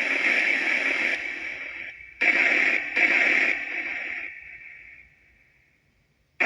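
Necrophonic spirit box app playing white noise through echo and reverb: hissing bursts cut in abruptly, twice about two and three seconds in, each fading away in a long tail, and it falls silent for over a second near the end.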